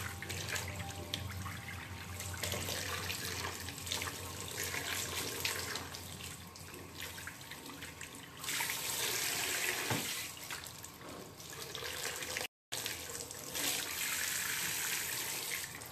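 Water spraying from a sink's pull-out sprayer head onto wet hair and into the basin, as a steady hiss that gets louder a little past halfway. It cuts out for an instant near the end.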